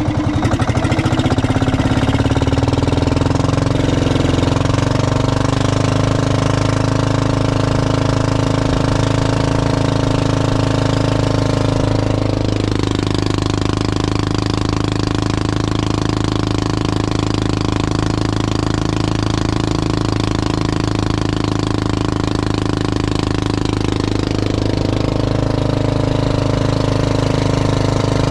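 An engine running steadily with an even, rapid beat. Its note shifts about halfway through and shifts back near the end.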